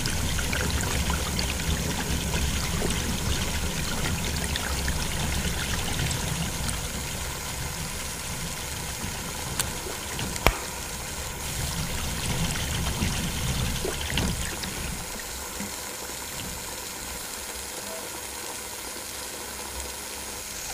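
Water pouring and splashing steadily from the spout of a small homemade model water pump into a shallow pool, with a sharp click about halfway through.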